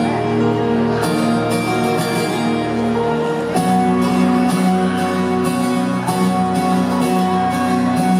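Live music from the instrumental intro of a song: guitar strummed in a steady rhythm over held chords, with a chord change about three and a half seconds in.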